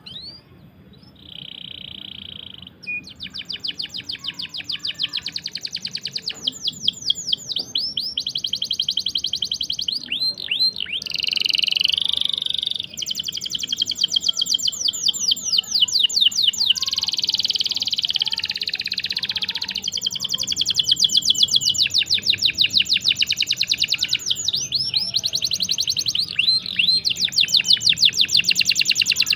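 Canary singing long rolls: fast trills of rapidly repeated high notes held for several seconds at a time with brief breaks, opening with a short steady whistled note.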